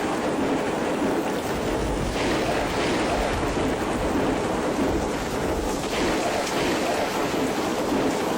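Steady, dense roar of a heavy storm: wind-driven rain and hail pouring down, with no single strikes standing out.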